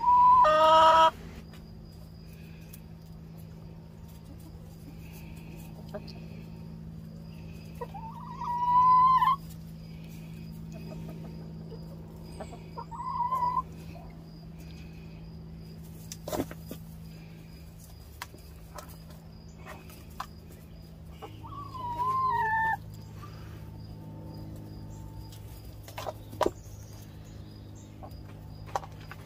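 Hens calling: four separate drawn-out calls, the loudest right at the start, the others about 8, 13 and 22 seconds in, over a steady low hum, with a few sharp clicks in between.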